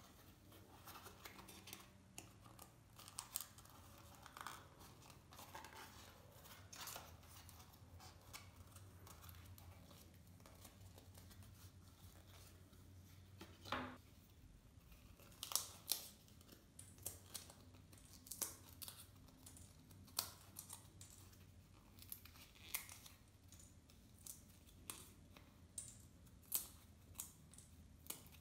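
Foam-board puzzle pieces being handled and pressed, with short sharp clicks and scratchy snaps scattered throughout. The snaps come more often in the second half, as the small pre-cut slot plugs are pushed out of a wall piece.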